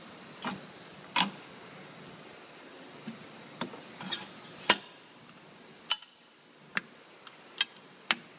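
About ten sharp metallic clicks and clanks at uneven intervals, from the stainless steel lid and toggle clamps of a solder dross separator being handled.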